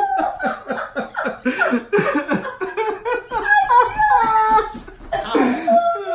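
Several people laughing and exclaiming over one another, a man's hearty laughter among them.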